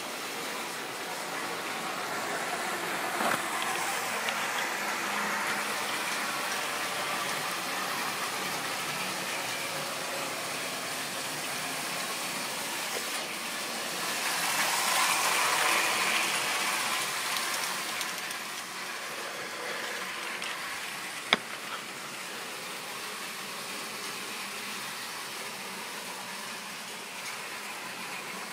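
Model railway train running on the track: a steady whirr of a small motor and wheels on rail, which grows louder for a few seconds about halfway through. One sharp click comes about three quarters of the way in.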